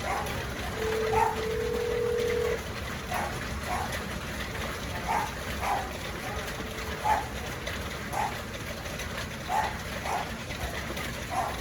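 A dog barking repeatedly, short single barks every half second to second and a half, over a steady low rush of noise. A steady tone sounds for under two seconds about a second in.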